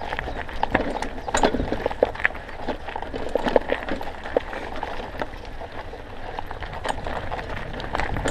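Mountain bike clattering and rattling over a stony dirt trail, with irregular sharp knocks and clicks from the bike, over a steady low rumble of wind on the microphone.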